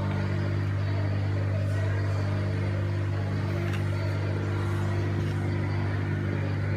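Steady low mechanical hum of a running machine, even and unchanging, with a stack of overtones above its low tone and a few faint clicks.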